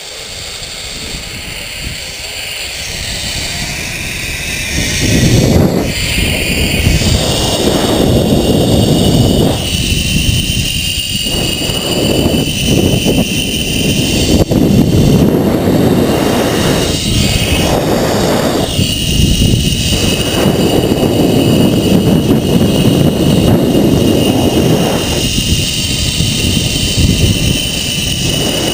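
Zipline trolley's pulley wheels running along the steel cable: a whine that climbs in pitch over the first few seconds as the rider gathers speed, then holds steady. Heavy wind rush on the microphone, gusting loudly throughout.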